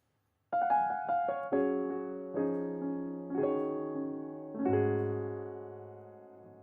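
Background piano music. It starts about half a second in with a short phrase of struck notes and chords, and the last chord, with a low bass note, rings on and fades.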